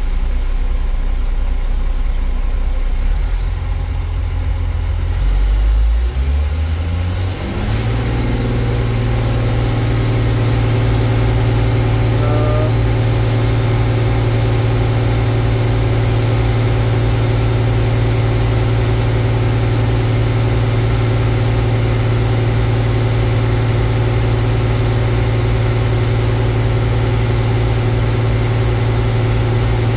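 Caterpillar 966H wheel loader's six-cylinder diesel rising from low idle to high idle about six to eight seconds in. It then runs steadily at about 2,270 rpm with a steady high whine, held at high idle for cooling fan calibration.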